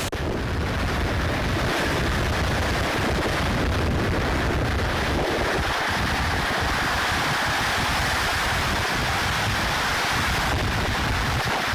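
Floodwater rushing through the open spillway gates of a dam and down the river in a loud, steady wash, with wind buffeting the microphone.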